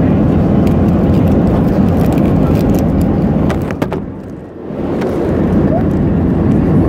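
Steady airliner cabin noise: a constant low rumble of engines and rushing air. A few sharp clicks come about three and a half seconds in, and the sound dips briefly before returning.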